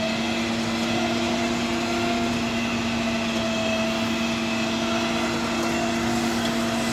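John Deere 6145 tractor engine heard from inside the cab, running steadily under the load of a 27-row planter on a slope: a constant drone with a held hum.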